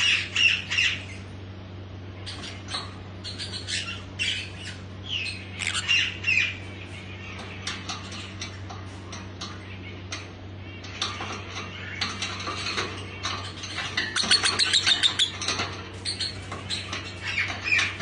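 Caged lovebirds calling: repeated shrill chirps and squawks in short clusters, with a fast run of calls about two-thirds through, over a steady low hum.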